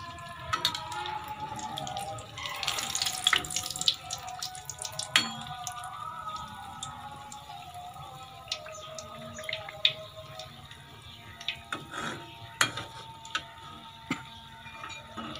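Samosas deep-frying in hot ghee: steady sizzling with scattered crackles and pops, briefly louder about three seconds in. Soft background music plays underneath.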